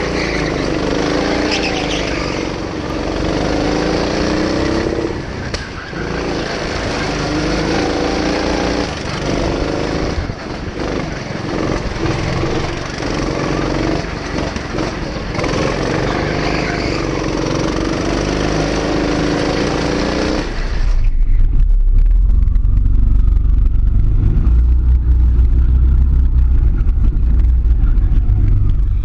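Go-kart engine revving up and down as it is driven through the corners of the track. About 21 seconds in, the engine's pitch fades and a loud low rumble takes over.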